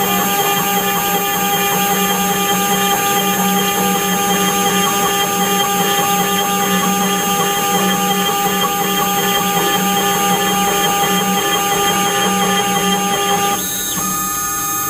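CNC router engraving metal: a steady, high spindle whine over the rough noise of the cutter, with a brief change in the tone near the end.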